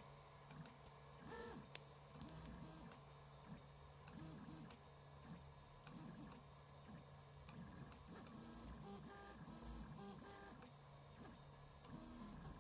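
RepRap Prusa 3D printer printing: its stepper motors sing in short, quickly changing tones and small rising-and-falling glides as the print head and extruder move, over a steady low hum. The sound is quiet, with one sharp tick about two seconds in.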